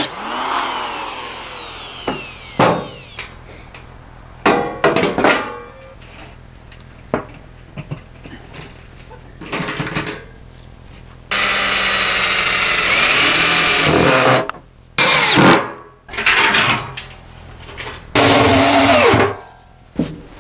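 Angle grinder cutting a steel drum in repeated bursts, the longest lasting about three seconds in the middle. Near the start the grinder's whine winds down.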